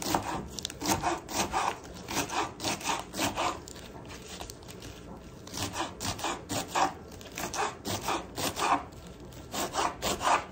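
Kitchen knife chopping lettuce leaves against a board in quick repeated strokes, about three or four a second, pausing for a second or so near the middle.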